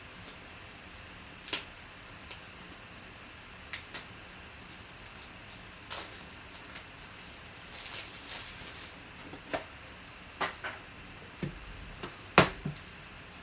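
Scattered clicks and taps of cards and plastic card holders being handled on a tabletop, with a brief rustle about eight seconds in and a sharper click near the end.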